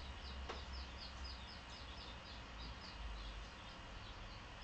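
Japanese bantam chicks peeping: a steady run of short, high, falling peeps, about four a second.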